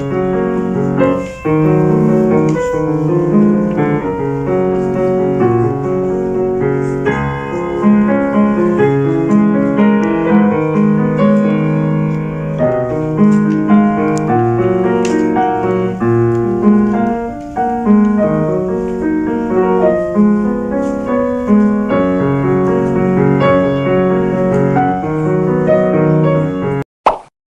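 Solo Steinway grand piano played continuously, a busy passage of many quick notes over sustained lower chords. The sound cuts off abruptly near the end.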